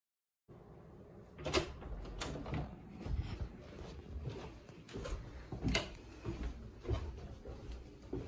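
Footsteps and handling noise on a handheld phone: a string of soft knocks and thuds roughly every half second to second, over a low rumble.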